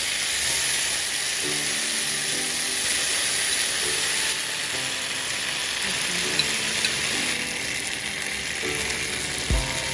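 Chicken sizzling in hot oil: a steady hiss, with faint music underneath and a low thump near the end.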